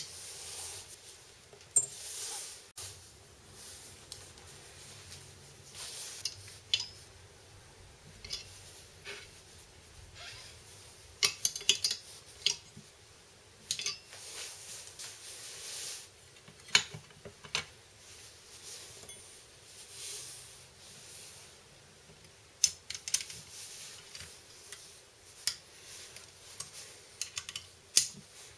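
Hand tools clinking, tapping and scraping on the metal of a small engine's flywheel and a jaw coupler being fitted to it. The sharp clinks come at irregular moments, with stretches of rasping scrape in between.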